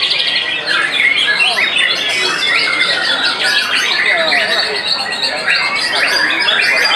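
White-rumped shamas (murai batu) singing in contest cages, many birds at once: a loud, continuous tangle of overlapping whistles, chirps and quick trills.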